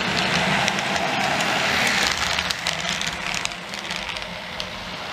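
OO gauge model freight train running past, its wheels clicking over the rail joints over a steady running noise. A diesel engine hum from the locomotive's DCC sound decoder is heard early on. The sound fades as the train moves away about three seconds in.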